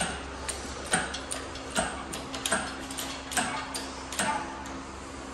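A shop engine hoist being handled: a string of sharp metallic clicks, roughly two a second and not quite evenly spaced.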